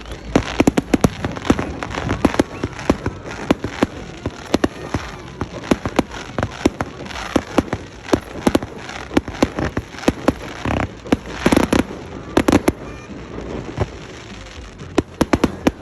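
Fireworks crackling and popping: many sharp, irregular cracks, several a second, some much louder than others, over a steady hiss.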